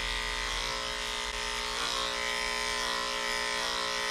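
Electric dog grooming clippers with a number 4 blade running with a steady hum, shaving a dog's curly coat.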